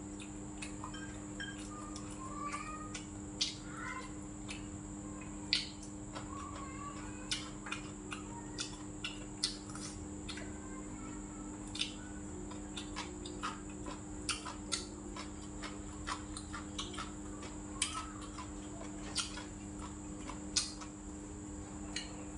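Eating at a table: chopsticks and a metal spoon clicking against bowls and plates in irregular light taps, with chewing and mouth sounds between them, over a steady low hum and a high steady whine.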